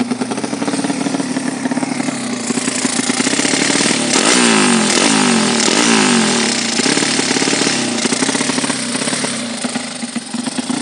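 Drag-tuned motorcycle engine being revved: several quick throttle blips around the middle, each dropping back in pitch, before it settles lower near the end.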